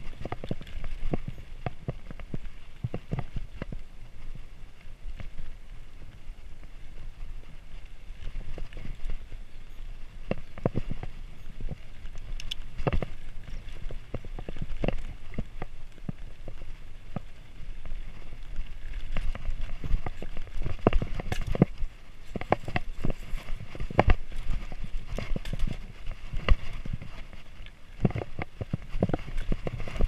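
Mountain bike clattering over a rough dirt and rocky trail, with frequent irregular knocks and rattles as the wheels hit rocks and bumps, over a steady low wind rumble on the microphone.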